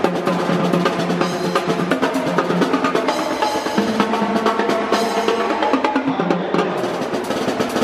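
Loud drum-driven music: fast snare rolls and bass drum over sustained low notes.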